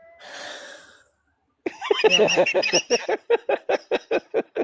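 A person takes one deep, audible breath lasting about a second. Then a voice says "yeah" and breaks into rapid laughter, about five short bursts a second, which is the loudest sound.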